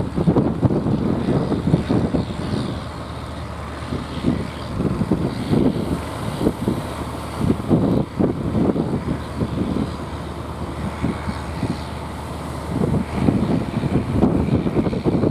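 Wind buffeting the microphone in gusts over a steady low drone of a boat's engine, with water noise.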